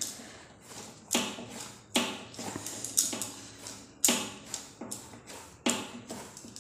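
Hands kneading soft wheat-flour dough with ghee in a steel plate: sharp knocks of the plate about once a second with a short ring after each, and bangles on the wrist clinking with each push.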